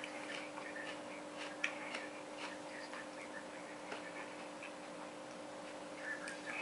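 Eating sounds at close range: scattered small clicks and soft mouth noises of chewing and a metal spoon on a plate, the sharpest click about a second and a half in. A steady low electrical hum runs underneath.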